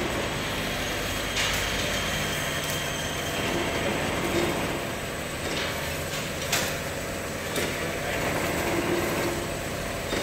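Automatic bottle labelling machine running: a steady motor hum with irregular sharp clicks and clacks from the conveyor and its mechanism as plastic bottles pass through.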